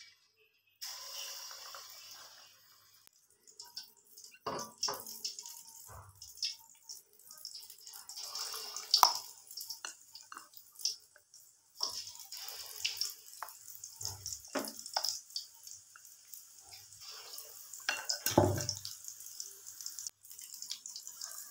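Gram-flour-battered potato balls (aloo bade) deep-frying in hot oil in a karahi: a steady sizzle that starts about a second in as the first ball goes into the oil, with frequent crackles and pops and a few dull knocks.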